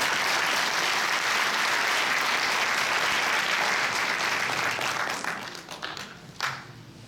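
Audience applauding, then dying away with one last clap near the end.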